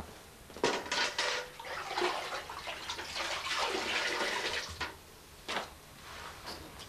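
Water splashing and sloshing, with a few sharp knocks in the first second or so and more knocks near the end.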